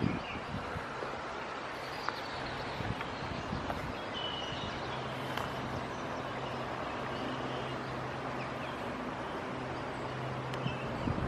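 Steady outdoor background noise with a faint low hum running under it and a brief high chirp about four seconds in.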